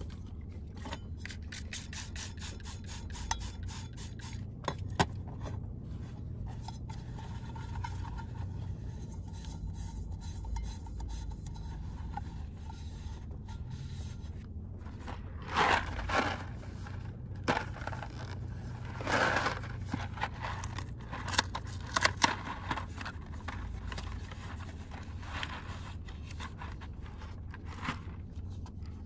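Scraping and rustling of cookware and a cardboard pasta box being handled and opened, in a few louder bursts from about halfway through. Fine ticking of rain on the car roof runs underneath.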